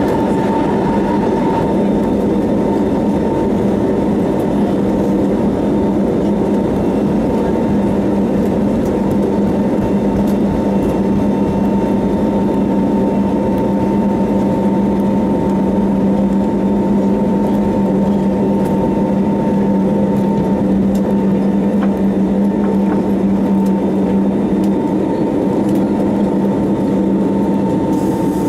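An Airbus A321neo's Pratt & Whitney PW1100G geared turbofans running at takeoff thrust during the takeoff roll, heard inside the cabin beside the engine: a loud, steady sound with two constant humming tones. A few seconds before the end the lower hum fades away as the aircraft lifts off.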